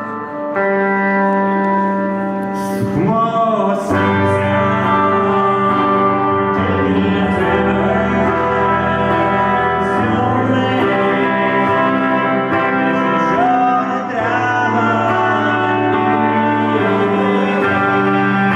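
Live band music, an instrumental passage of sustained chords with guitar and bass, and a wavering lead line that rises and falls a few times.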